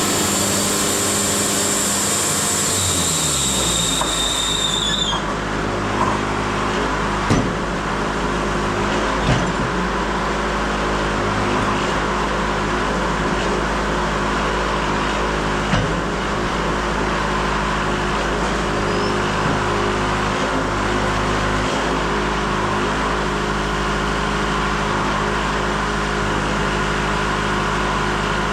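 Wood-Mizer LT70 bandsaw sawmill: a high blade whine stops about five seconds in as the cut ends, and the mill runs on with a steady drone, broken by a few knocks and clunks.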